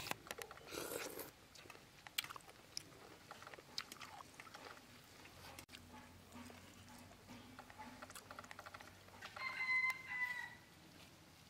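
Faint eating sounds from people eating by hand: small clicks and wet ticks as snail meat is picked from the shells and chewed with rice. About nine seconds in, a chicken calls once for about a second, the loudest sound.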